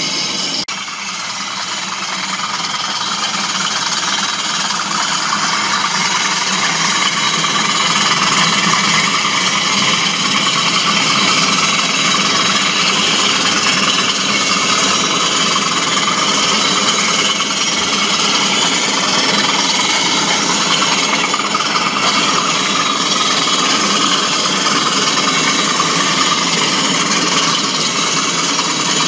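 OO-gauge model diesel locomotives running on the layout's track: a steady engine-like drone with the rumble and rattle of wheels on rail, building a little over the first few seconds.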